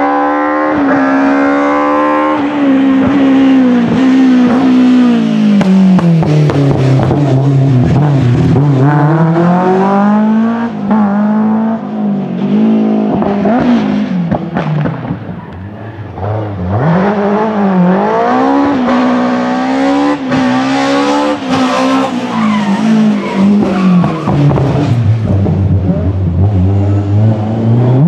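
BMW M3 E30 rally car's engine revving hard, its pitch climbing through the gears and dropping again several times as it brakes and accelerates, with short crackles from the exhaust when it lifts off.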